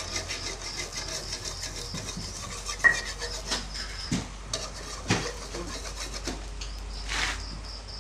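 Metal spatula scraping and clinking against a metal wok while a beaten-egg omelette fries, in a string of short scrapes and taps.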